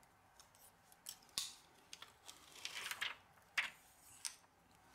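Protective plastic film being peeled off a replacement phone display: faint, short crackles and crinkles of thin plastic, about five of them spread over the few seconds.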